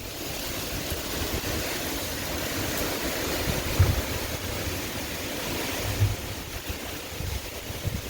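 Hurricane-force storm wind blowing hard in a steady rush, with gusts buffeting the microphone in low thumps, the strongest about four and six seconds in.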